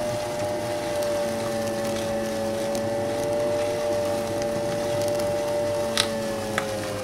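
Electric meat grinder running with a steady motor whine while its auger crushes crunchy cookies into crumbs. The whine sags slightly in pitch near the end, and there is a sharp crack about six seconds in and a smaller one just after.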